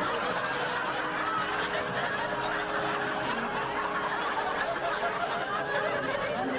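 Audience laughing, a dense unbroken mass of many voices.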